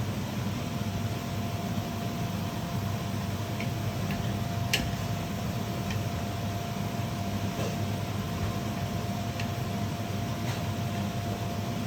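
Steady mechanical hum with a faint high tone running through it, and a few light clicks, the clearest about five seconds in.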